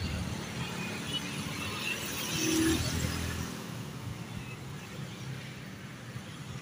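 Road traffic: motorcycles passing, one louder pass swelling about two to three seconds in and then fading.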